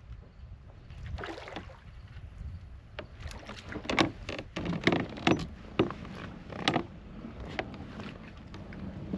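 Splashing and knocking from a hooked bass being fought at a kayak. There are a few sharp splashes and knocks, loudest and most frequent from about three to seven seconds in, over a steady low rumble.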